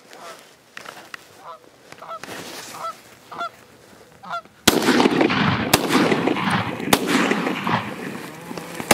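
Geese honking, short calls every second or so. About halfway through, three sharp shotgun shots go off roughly a second apart, with loud noise between and after them.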